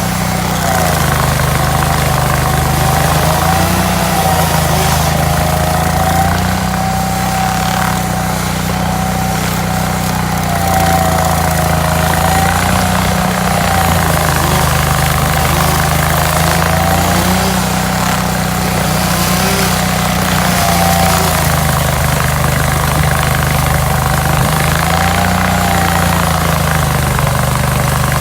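Hydraulic stump grinder's engine running hard and loud, its note sagging under load and picking back up about every three to four seconds as it works, with a higher whine that bends along with it.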